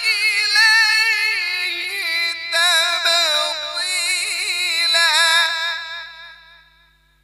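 Quran recitation (tilawat): a male qari chants one long, high-pitched melismatic phrase into a microphone, the voice wavering through ornaments, then tapering off and fading out about six seconds in.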